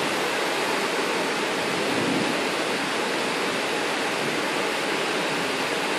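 Floodwater rushing down a street in a steady torrent.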